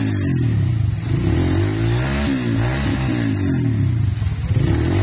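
Trail motorcycle engine revving up and down over and over, the pitch rising and falling about once a second as the throttle is worked.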